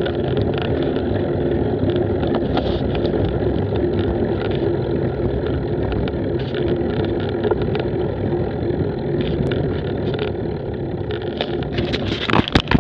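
A vehicle engine running steadily at low speed, a constant hum under a rushing noise, with a few sharp knocks near the end.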